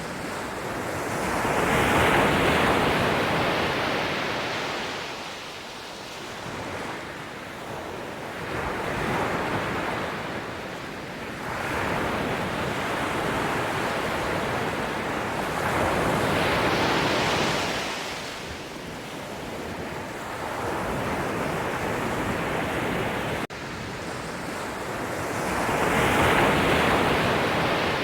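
Ocean surf: waves breaking and washing in as slow, swelling rushes of noise that rise and fall every several seconds, with three big surges (near the start, in the middle and near the end) and a smaller one between the first two.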